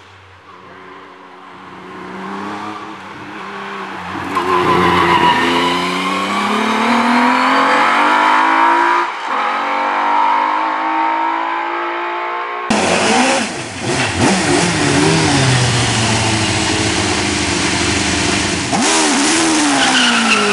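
Single-seater hill-climb racing cars at full throttle. One car's engine note grows loud and keeps rising in pitch as it approaches, dropping back sharply once about nine seconds in. After a cut, a second car revs hard as it passes close by, its pitch swinging down and up near the end.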